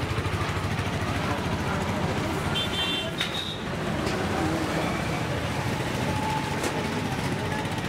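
Steady road traffic noise with a low engine hum, and a brief high beep about three seconds in.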